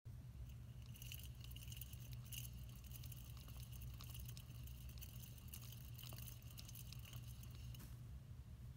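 Plastic flying-saucer hamster wheel spinning under a running hamster: a faint, steady high whir with light ticking and clicking, which stops a little before the end as the hamster leaves the wheel.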